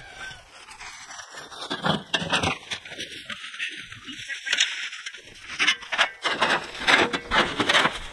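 Black plastic trash bags rustling and crinkling as debris is cleared into them, with irregular knocks, louder in the second half.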